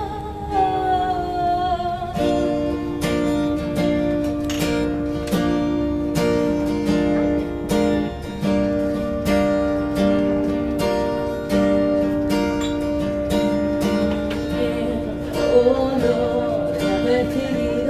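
Acoustic guitar strumming a steady chord rhythm through an instrumental break in a live acoustic song. A sung note is held and falls away at the start, and a voice comes back in near the end.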